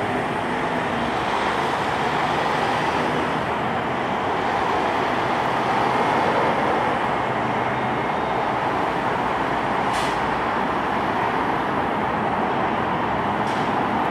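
EMD GP38-2 diesel locomotives' 16-cylinder engines running steadily as they lead an auto-rack freight train slowly around a curve. Two brief high hisses come about ten and thirteen and a half seconds in.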